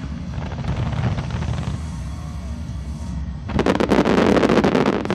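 Fireworks fired in a rapid volley, many sharp reports packed tightly together for about a second and a half, starting about three and a half seconds in. A steady low rumble lies under them.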